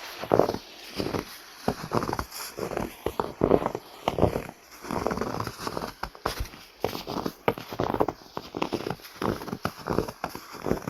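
Footsteps crunching in snow at a steady walking pace, one crunchy step about every second, processed as 8D audio so the steps swing around the listener's head.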